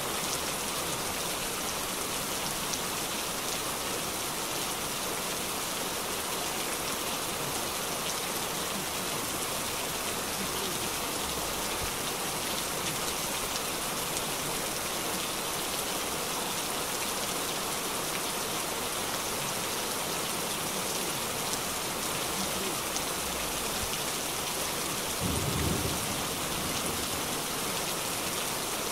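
Heavy rain pouring steadily onto a wet street and pavement, a dense even hiss. Near the end comes a brief low rumble.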